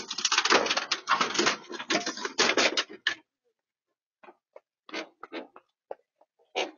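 A dense, rapid clatter of clicks for about three seconds, thinning to scattered single clicks and taps.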